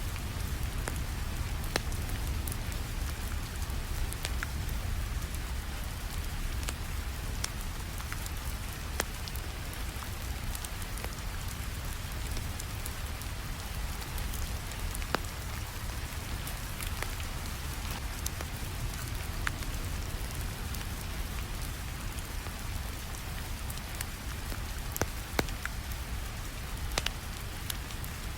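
Steady rainfall with a low rumble underneath, mixed with scattered sharp crackles and pops of a wood fire.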